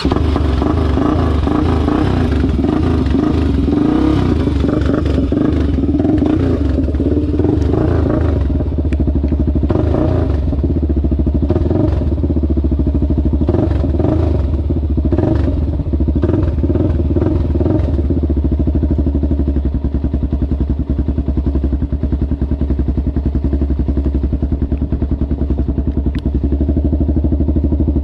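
ATV engine idling steadily just after being started, with a run of brief clattery spikes through the middle.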